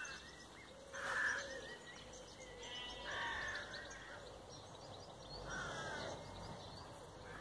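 Outdoor birdsong: a harsh cawing call three times, about a second in, around three seconds and near six seconds, over faint high chirping of small birds.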